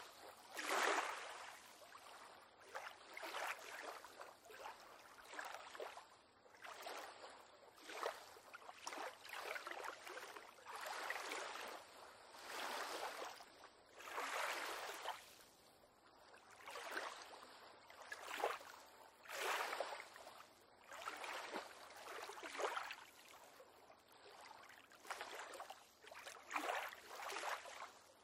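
Small waves lapping against a pier on calm water: a soft splash or slosh every one to two seconds, irregular in strength, with no deep surf rumble.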